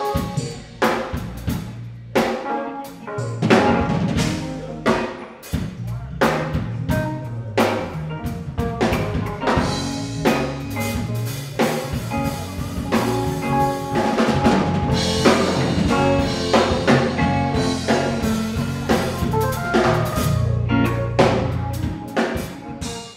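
Instrumental beat of a rap song: a drum kit with kick, snare and rimshot over a bass line and chords. It fades out near the end.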